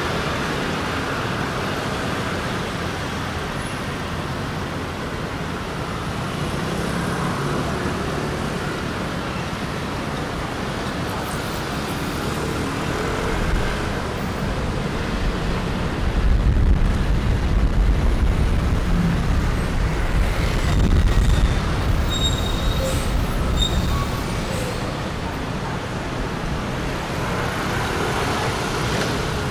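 Steady city street traffic, a wash of passing vehicles. A little past the middle, a deeper, louder rumble builds for several seconds as a large vehicle goes by, followed by a few short high-pitched squeaks.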